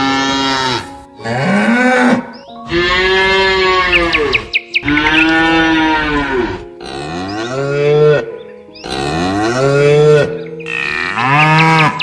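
Domestic cattle mooing: a string of about six loud moos, each a second or two long, rising and falling in pitch, one after another with short gaps.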